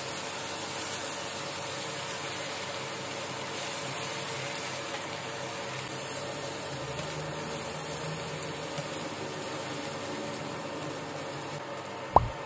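Egg, spinach and pork sizzling in a hot frying pan on an induction cooker, a steady hiss. A single short sharp knock near the end.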